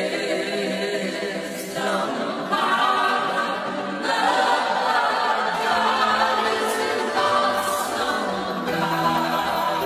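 A choir singing in harmony without instruments.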